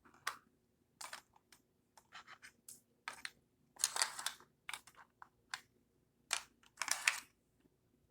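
Plastic marble run pieces clicking and clattering as they are handled and fitted together: a string of short clacks, with longer rattles about four and seven seconds in.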